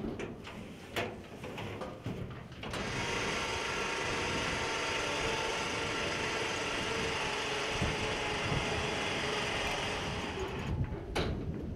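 A few metal clanks from the steel sheep handler crate, then its electric lift motor starts about three seconds in and runs steadily for about eight seconds as the crate is worked, stopping near the end.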